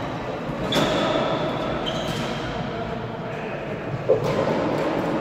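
Floorball game sounds in a large sports hall: a few sharp knocks of sticks and the plastic ball, the loudest about four seconds in, short shoe squeaks on the court floor, over a steady echoing hall background.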